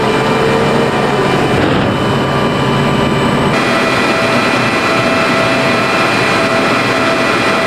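M1A2 SEP v2 Abrams tank's gas turbine engine running, a steady jet-like whine over a loud rush. The mix of whining tones changes suddenly about three and a half seconds in.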